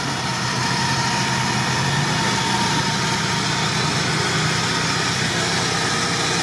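Engine of a lifted UAZ off-roader running steadily as the vehicle rolls slowly forward.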